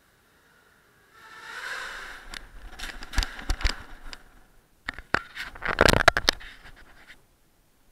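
A 250-size quadcopter drone crashing: its motors and propellers spin up with a rising whine, then rapid clacks and scrapes come as the spinning propellers strike the concrete. The loudest burst of strikes falls a little past the middle, and the sound cuts off about a second before the end.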